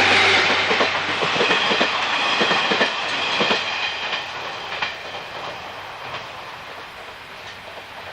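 A train running past on jointed track, its wheels clicking over the rail joints, the sound fading steadily as it moves away.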